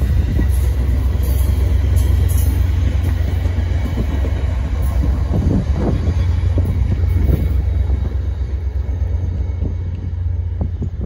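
VIA Rail passenger coaches rolling past at speed: a steady low rumble of wheels on rail with scattered clicks, easing off a little as the last car goes by near the end.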